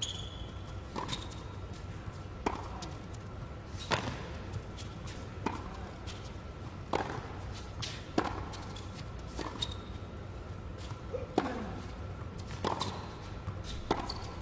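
Tennis ball struck back and forth with rackets in a long baseline rally on an indoor hard court: about ten sharp hits, roughly one every one and a half seconds, over a low steady arena hum.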